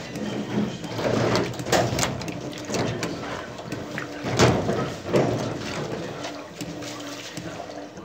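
Electrolux Turbo LT12F top-loading washing machine agitating a load of fabric in water: water sloshing and churning in repeated surges as the agitator swings back and forth, easing off near the end.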